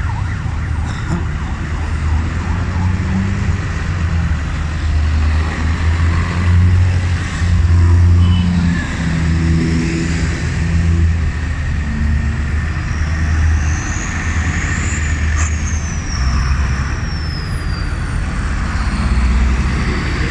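Diesel tractors in a slow procession driving past one after another, their engines giving a loud low drone that swells as each one passes. In the second half a high siren-like tone rises and then falls away.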